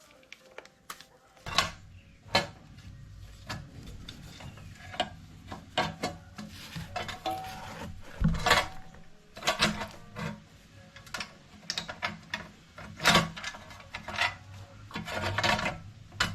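Small engine parts being handled and fitted by hand: a run of irregular clicks and knocks with scraping and rubbing between them.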